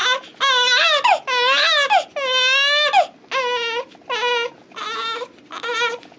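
Infant crying: a string of short, high wails, about eight in a row, each broken off by a quick breath.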